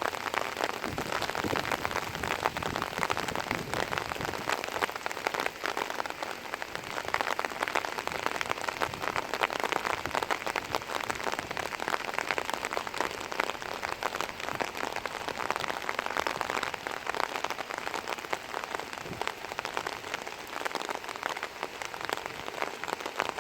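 Heavy rain falling steadily, a dense patter of countless drops hitting surfaces.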